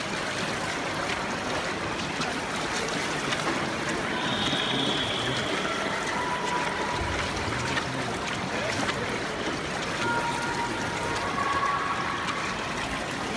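Steady rushing water noise picked up by a camera underwater in a swimming pool, muffled and without any clear events. A few faint short high tones come and go about four seconds in and again near ten seconds.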